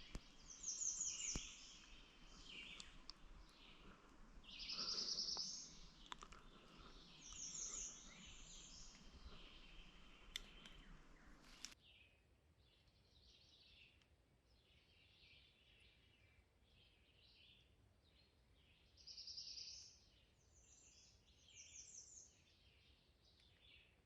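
Songbirds singing in spring woodland: short, high-pitched phrases of about a second each, repeated several times over a faint background hiss, with a few soft clicks in the first half.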